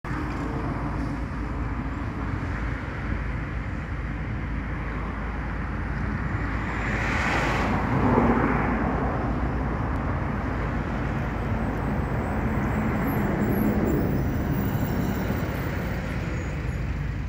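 Steady low rumble of a Dalian CKD8H diesel locomotive heading a passenger train that approaches slowly in the distance. A louder hiss swells about seven seconds in.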